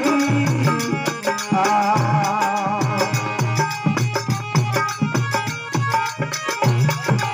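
Instrumental passage of a Rajasthani folk bhajan: a harmonium plays the melody over a steady dholak rhythm, with rapid, regular ticking percussion on top.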